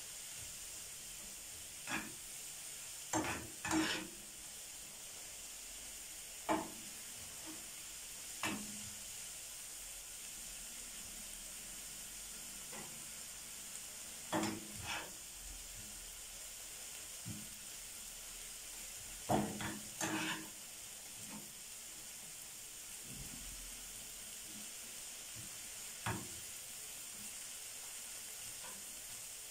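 Chopped onion with garlic and green pepper softening in ghee and oil in a frying pan, sizzling steadily: gentle frying to wilt the onion, not brown it. A spoon stirring the pan scrapes and knocks against it about ten times, the loudest strokes near the middle and again about two-thirds of the way in.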